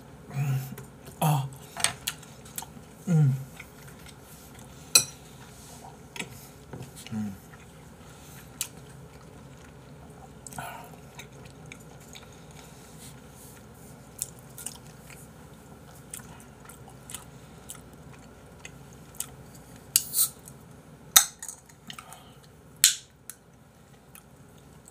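A man eating with his mouth full: several short burps in the first few seconds and another about seven seconds in, between chewing and the clink of a spoon and chopsticks. Near the end, sharp clicks and taps as a drink can is handled.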